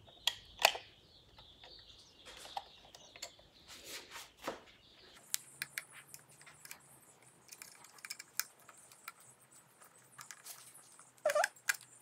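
Screwdriver and fingers working a plastic smart light-switch backplate into its wall box: scattered small clicks, taps and scrapes at irregular intervals, with a couple of louder knocks near the end.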